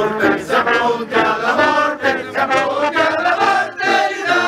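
A group of Bersaglieri fanfare members singing a marching song together in unison, in short rhythmic phrases.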